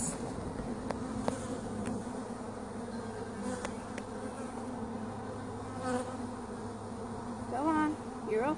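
Steady hum of a large honeybee colony in an open hive, thousands of bees buzzing at once. A brief rising whine comes near the end.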